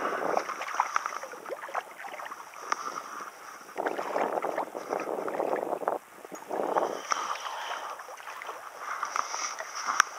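A hooked trout splashing at the water's surface, in repeated bursts of splashing. A single sharp knock near the end.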